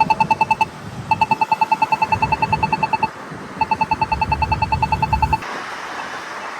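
Polara iNS2 accessible pedestrian signal push button giving its rapid ticking, about ten sharp pitched ticks a second in three runs with short breaks, stopping over a second before the end. The rapid tick is the button's walk-phase indication.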